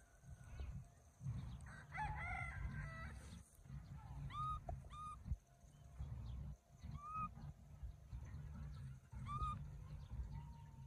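Short rising animal calls repeat about five times, with a longer, more complex call about two seconds in. A low wind rumble sits on the microphone underneath.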